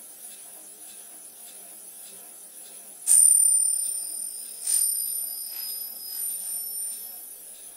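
High metallic ringing over a faint hiss: a sudden strike about three seconds in, another about a second and a half later and a fainter third, each ringing on and slowly fading.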